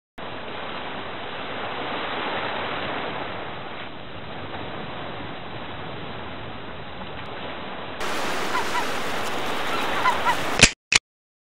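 Steady rush of water noise, which switches to a brighter, fuller recording about eight seconds in with a few faint high chirps, then cuts off abruptly with two sharp clicks near the end.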